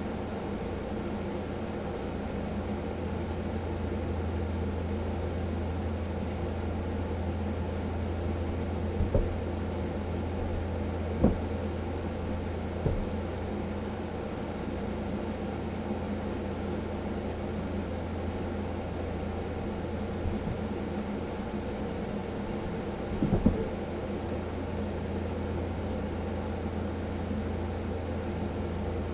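A steady low mechanical hum, with a handful of short thumps scattered through it.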